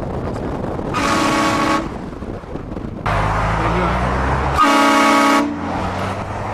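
Vehicle-mounted train horn sounding two short blasts about three and a half seconds apart, each under a second long and each a chord of several tones. A low rumble runs underneath and grows stronger just before the second blast.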